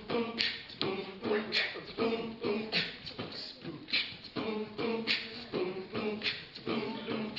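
Live beatboxing: a steady mouth-made beat with a sharp snare-like hiss about every second and a bit and lighter hits between, and a voice holding pitched notes in the gaps.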